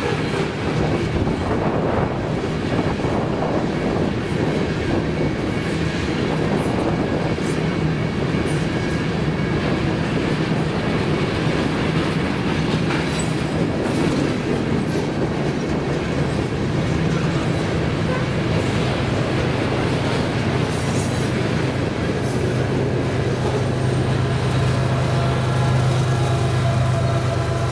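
A train of loaded covered hopper cars rolling past with a steady rumble of wheels on rail and many small clicks. Over the last few seconds the rear distributed-power locomotive, a GE Evolution-series (GEVO) diesel, comes by, and a steady low engine hum swells up under the rail noise.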